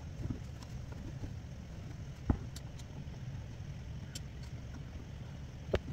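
Light handling clicks from hand beadwork, with needle and beads being stitched into net fabric: two sharp clicks, the louder about two seconds in and another near the end, plus a few faint ticks. They sit over a steady low rumble.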